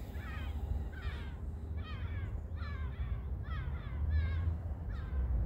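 A crow cawing repeatedly in a quick series of short calls, about two a second, each dropping slightly in pitch, over a steady low rumble.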